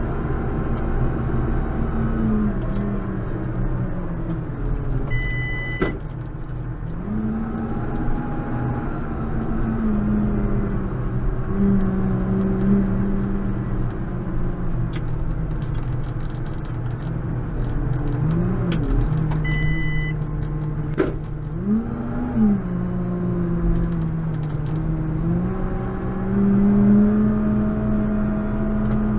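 JCB Fastrac 4220 tractor's diesel engine running, its pitch rising and falling as the revs change. Two short, high electronic beeps sound about five and nineteen seconds in, and there are a few sharp clicks.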